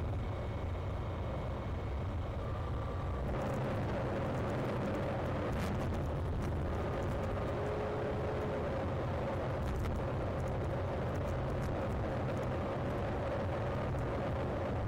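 Steady engine and tyre noise of a car driving on an asphalt road, heard from inside the moving car as a continuous low rumble with a faint hum, and a few light clicks.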